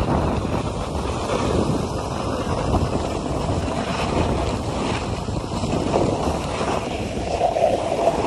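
Wind buffeting a phone's microphone as the person filming slides downhill on a ski slope, mixed with the continuous hiss and scrape of a ski or snowboard on packed snow.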